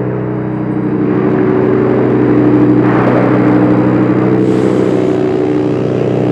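Drone synthesizer holding a low, steady chord of several sustained tones. A layer of hiss swells and fades over it, loudest about three seconds in.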